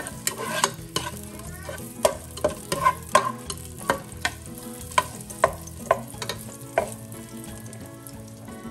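Onion slices sizzling in hot olive oil in a nonstick pot, stirred with a plastic spoon that knocks and scrapes against the pot about twice a second. The stirring stops near the end, leaving only the sizzle.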